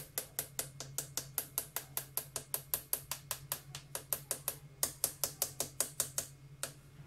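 A hand tapping a mesh flour sieve held over a bowl, sifting flour into batter: quick sharp taps at about six a second that stop near the end.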